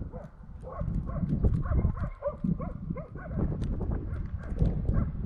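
Laika hunting dogs barking in quick repeated barks, several a second, the bay bark of dogs holding a moose in place. A low rumble runs underneath.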